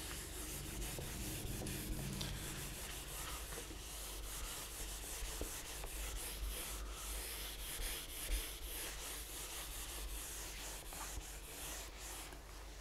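Whiteboard eraser rubbing marker writing off a whiteboard in repeated scrubbing strokes.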